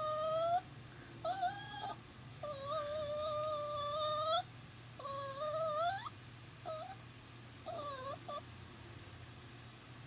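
Italian greyhound puppy crying: a run of long, high, drawn-out whines, one rising at its end about six seconds in, then shorter, broken cries. The owner puts the nonstop crying down to the puppy missing its mother.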